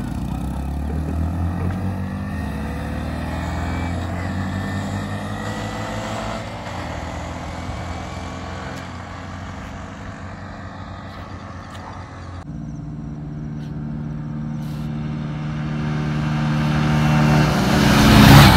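Two small single-cylinder commuter motorcycles, a Bajaj Platina 110 and a Hero HF Deluxe, run flat out side by side and fade as they pull away. After a sudden cut they are heard coming back towards the listener, growing louder to a peak as they pass near the end.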